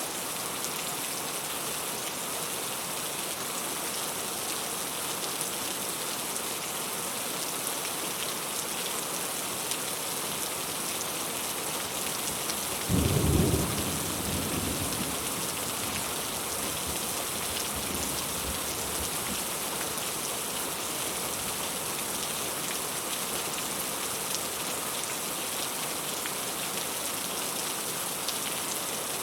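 Steady rain falling, with one sudden low clap of thunder about halfway through that rumbles away over a few seconds.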